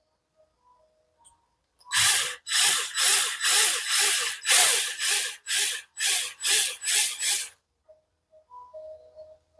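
Rhythmic scraping strokes on a metal diecast car body, about two a second for some five seconds, starting about two seconds in.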